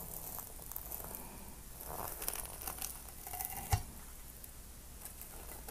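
Knife sawing through a burrito coated in crushed hot Cheetos, the crunchy coating crackling and crinkling as the blade works, with one sharp knock of the blade against the board about three and a half seconds in.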